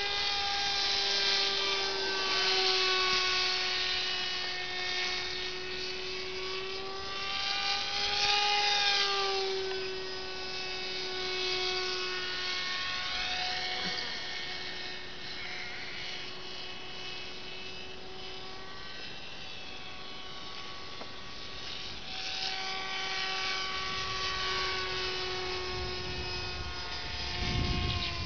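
Electric motor and pusher propeller of a small foam radio-controlled trainer plane in flight: a steady buzzing whine that swells and fades and bends slightly up and down in pitch as the plane passes and turns.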